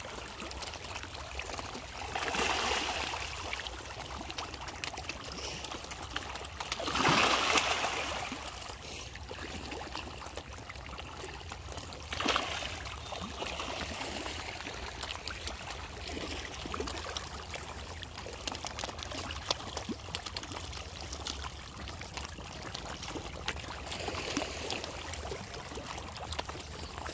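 Water splashing and churning as a crowd of fish thrashes at the pond surface among floating feed, with louder splashes about two, seven and twelve seconds in.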